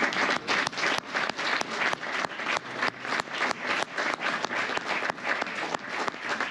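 Audience applauding, with individual sharp claps standing out in the clapping.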